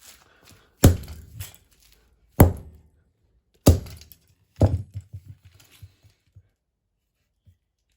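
Four heavy blows as a fan is smashed, each followed by a short rattle of loose pieces, then a few lighter knocks.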